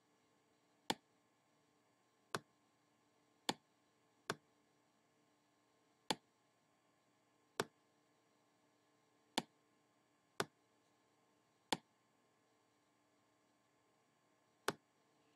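About ten single, sharp clicks of a computer pointing device, spaced unevenly a second or two apart, with near silence in between.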